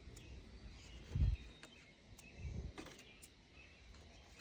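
Quiet outdoor background with soft handling noise as dry nest material is pulled out of a truck's engine bay by hand: a low thump about a second in and a softer one about two and a half seconds in.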